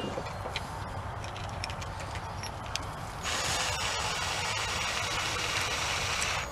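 A few light handling clicks, then about three seconds in a cordless drill spins freely off the work with a steady whirr that stops abruptly.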